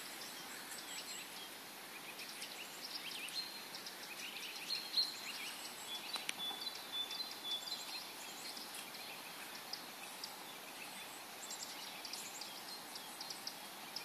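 Several songbirds singing and calling together: many short high chirps and trills, with one longer whistled note held for about a second, about six seconds in, over a faint steady hiss.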